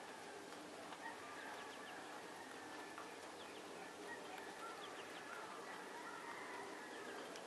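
Faint bird calls and short chirps over a steady background hiss.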